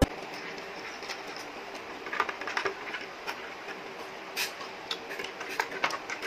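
Steady background hiss with scattered light clicks and taps.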